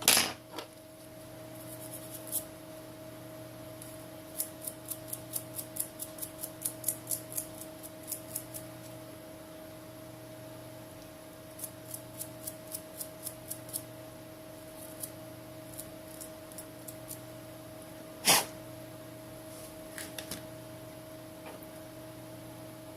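Runs of quick, light clicks from small tools and parts being handled during the phone's reassembly, about three to four a second, with one louder knock near the end, over a steady electrical hum.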